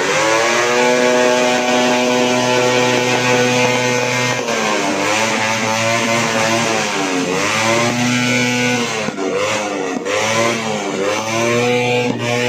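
Motor vehicle engines revved hard and held at high revs, the pitch dropping and climbing again several times as the throttle is let off and opened back up, with more than one engine overlapping in the later seconds.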